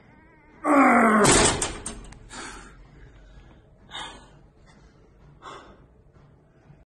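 A man gives a loud strained grunt of effort on a leg extension machine, falling in pitch, followed by a metallic clatter from the machine. A few fainter short breaths or knocks come afterward.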